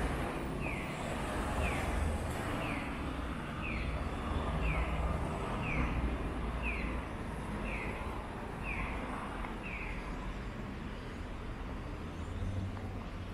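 Accessible pedestrian crossing signal chirping for the walk phase: one short falling electronic chirp about once a second, evenly spaced, stopping about ten seconds in. Low rumble of street traffic underneath.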